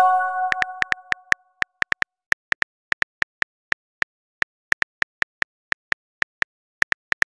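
A chat app's message chime: a short chord of bell-like tones fading out over about a second and a half. It is followed by a run of phone keyboard key clicks at an irregular pace, a few per second, as a message is typed.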